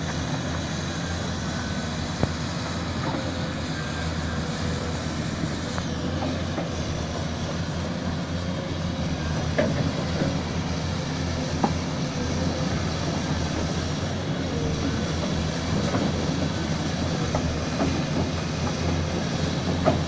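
Caterpillar 325C and 325D hydraulic excavators working frozen topsoil: a steady, deep diesel engine drone, with a few sharp knocks as the bucket digs.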